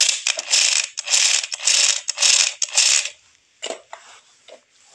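Plastic toy tool parts rattling and clacking as they are handled, in about five short rattly bursts over the first three seconds, then a few lighter clicks.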